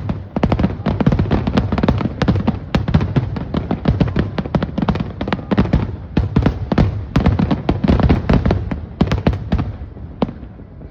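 Aerial fireworks bursting in a dense, rapid barrage: many overlapping bangs and crackles, easing off in the last second or so.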